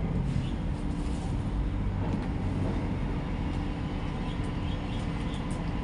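A steady low mechanical rumble, like an engine or machinery running, with a faint constant hum over it and a few faint small ticks.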